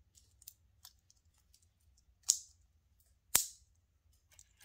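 Clip-on earrings being handled: a few faint ticks, then two sharp clicks about a second apart, the second one the loudest.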